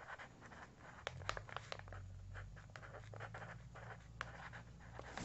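Felt-tip pen writing on notebook paper: faint, quick scratches and ticks of the tip as a short phrase is written.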